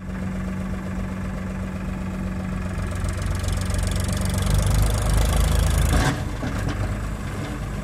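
Diesel engine of a Powertrac Euro tractor working under load as it pulls a trolley of earth. Its sound grows louder from about halfway and drops back suddenly about six seconds in.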